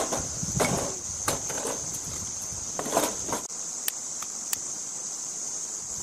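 Split firewood logs knocking as they are stacked onto the grate of a steel fire pit: several wooden knocks in the first half, then a few light ticks. A steady high insect drone runs underneath.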